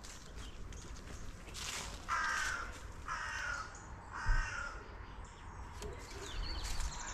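A crow cawing three times in a row, harsh calls about a second apart, with a dull thump just after the third.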